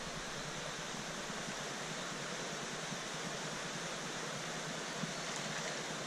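Steady rush of a shallow stream running over stones.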